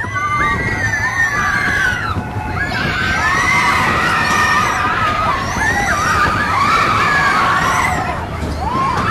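Riders on the Big Thunder Mountain Railroad mine-train roller coaster screaming and whooping, several high voices overlapping, over the steady rumble and rattle of the train running on its track.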